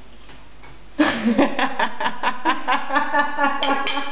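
A woman laughing: a quiet moment, then from about a second in a run of quick laughing pulses, about four a second.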